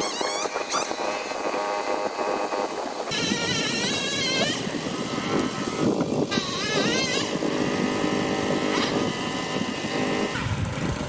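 A small petrol engine running steadily, with a wavering higher whine that rises and falls several times.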